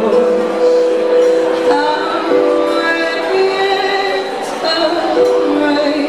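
Live song: a Roland RD-700SX stage piano plays held chords that change every second or so, with a woman singing at the microphone.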